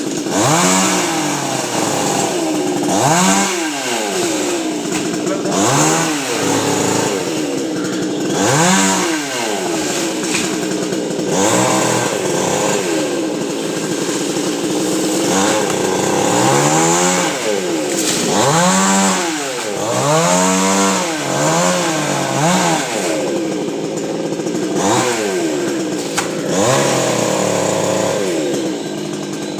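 Chainsaw running while cutting a coconut palm, its engine revved up and let fall back again and again, the pitch rising and dropping every couple of seconds.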